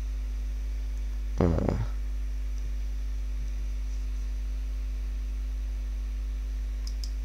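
Steady electrical mains hum in the microphone signal, with a brief vocal sound about a second and a half in.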